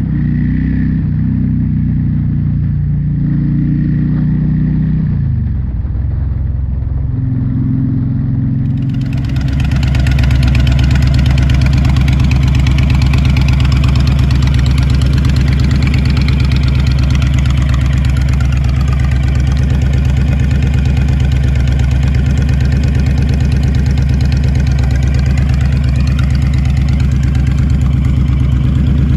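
Honda VTX1300C's V-twin engine running, its pitch shifting for the first several seconds, then a steady idle from about nine seconds in.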